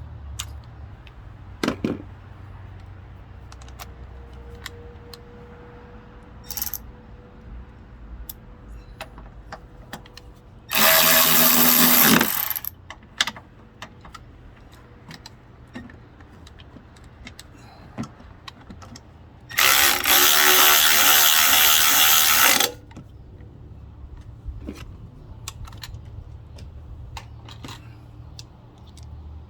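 Power tool run in two bursts, about a second and a half and then about three seconds, driving in the bolts of a new engine thrust mount on a 2004 Toyota Camry. Scattered metal clicks and knocks from hand tools come between the bursts.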